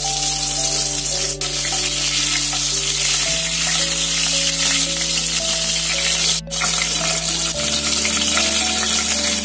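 Skewered giant river prawns (golda chingri) frying in hot white oil, with a steady, dense sizzle. The sizzle breaks briefly about six and a half seconds in.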